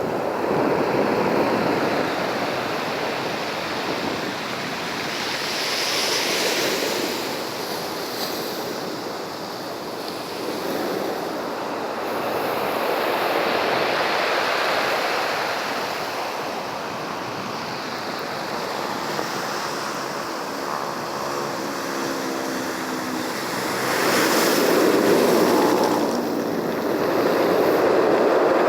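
Ocean surf: waves breaking and washing in, the noise swelling and easing every few seconds, with the biggest surges near the end.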